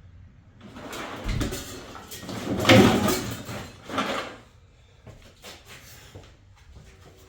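Someone rummaging through stored things in search of a funnel, objects clattering and scraping as they are shifted, loudest about three seconds in with another knock about a second later.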